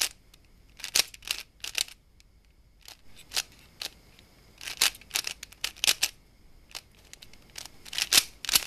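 3x3 Rubik's cube being turned by hand: irregular sharp plastic clicks as its layers rotate, coming in small clusters with short pauses between.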